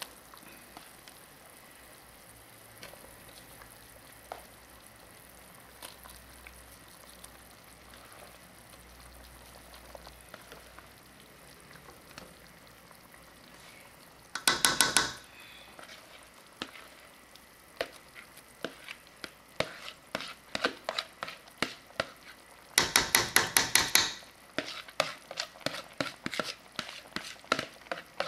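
A metal spoon scraping and clinking against an aluminium pot as mashed potato is spooned into the broth: a dense rattling burst about halfway, scattered knocks, then a second longer burst and more knocks near the end. The first half holds only a faint steady background.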